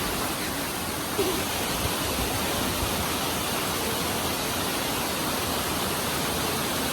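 Steady rushing noise that fills the whole range from low to high, growing a little brighter about a second in.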